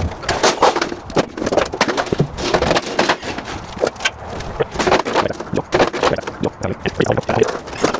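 Irregular clattering and scraping of roof sheets being picked up and handled, with many sharp knocks in quick, uneven succession.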